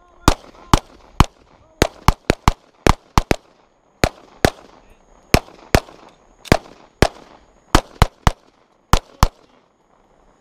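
Pistol gunfire from several shooters firing at once: more than twenty sharp shots at an uneven pace, sometimes in quick pairs or triples, each with a short echo.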